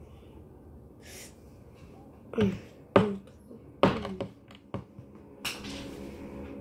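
Handling noise from a tough plastic toy being forced open: about four sharp knocks and clacks, roughly a second apart, some with a short falling squeak, then a soft rustle near the end.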